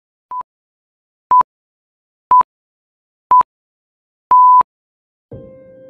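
Electronic countdown beeps: four short, high-pitched beeps one second apart, the first a little softer, then a longer final beep. Music starts just before the end.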